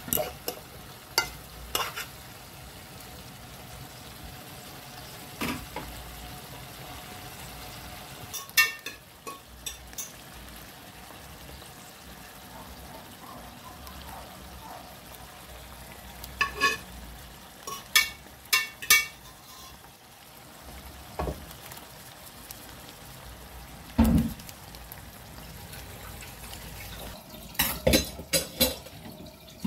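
A pan of saltfish stew with flour dumplings sizzling steadily on the stove, with a spoon stirring it and knocking against the pan in scattered clusters of clinks.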